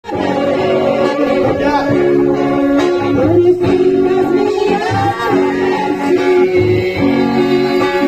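Music with a singing voice over guitar and a steady beat.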